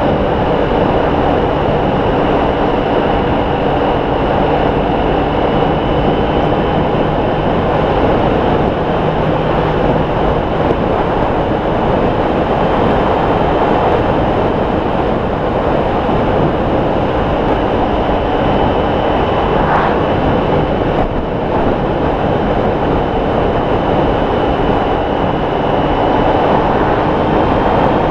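Honda ST1300 motorcycle cruising at a steady speed: a loud, even rush of wind and road noise over the steady drone of its V4 engine.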